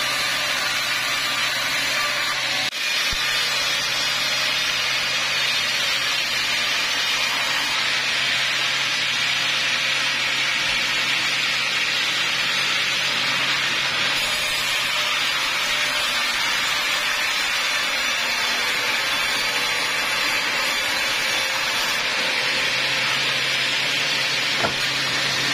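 Large vertical band saw ripping a log lengthwise: a steady cutting noise over the low hum of its drive motor, with a brief drop in loudness about three seconds in.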